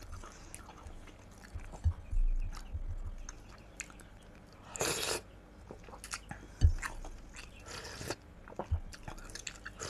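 Close-miked chewing and mouth sounds of a person eating soup from a wooden spoon, in short separate bursts with a few soft low thumps.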